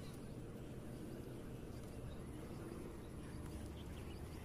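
Quiet outdoor background: a steady low rumble, with faint bird chirps now and then.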